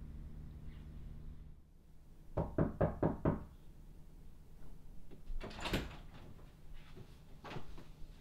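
Knocking on a door: about five quick raps in a row, followed a couple of seconds later by one louder thud as the door opens.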